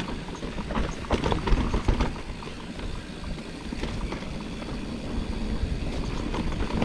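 Mountain bike riding down a dirt trail: tyres rumbling over the ground, with a clatter of knocks and rattles from the bike that is busiest in the first two seconds.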